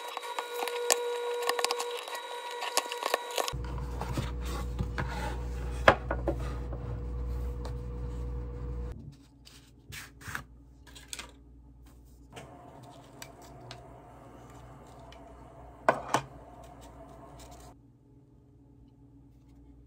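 Cardboard gift box rubbing and scraping as a tight-fitting lid is worked open by hand, with many small clicks. Quieter sliding of a card sleeve and light knocks of a metal incense tin follow, with one sharper knock near the end.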